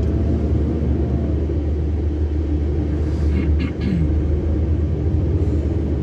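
Steady low rumble of a Volvo FH 540 truck's diesel engine and tyre noise, heard inside the cab while cruising on the highway.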